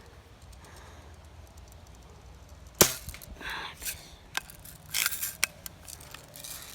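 A BB gun firing once with a sharp crack about three seconds in, followed by a run of smaller clicks and short rattles.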